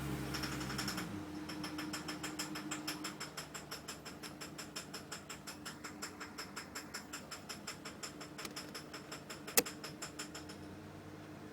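A car engine running, then shutting off about a second in. A rapid, even ticking of about six a second follows and fades away over some ten seconds, with one sharp click near the end.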